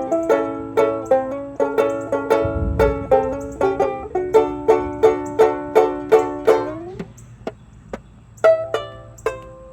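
Banjo-ukulele played solo, a steady pattern of bright plucked chords and notes. About seven seconds in it drops back to a few soft plucks for over a second, then the pattern resumes.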